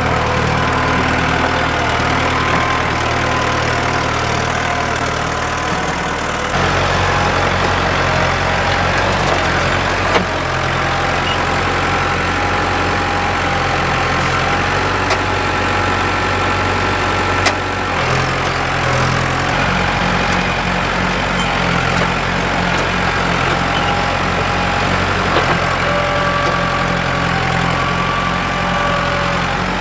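Diesel tractor engine running steadily, its note shifting a few times as the load or throttle changes, with a couple of brief sharp knocks.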